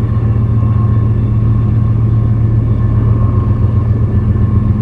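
Norfolk Southern diesel freight locomotive passing close by, its engine and the train giving a loud, steady low rumble between horn blasts; the horn comes back in just at the end.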